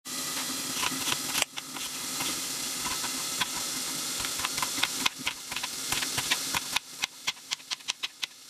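Knife chopping green pepper on a plastic cutting board, the taps coming quicker near the end, over the steady hiss of meat sizzling in a frying pan.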